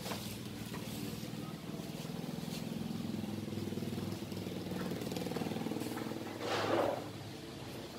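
A vehicle engine running steadily, its pitch shifting slightly up and down, with a short louder rush of noise near the end.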